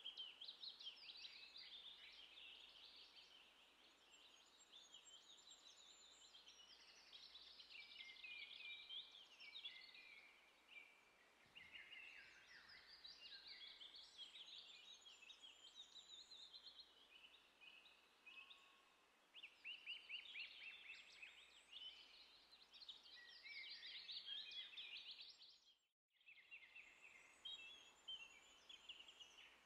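Faint outdoor chorus of songbirds, many short chirps and fast trills overlapping, with a brief gap in the sound near the end.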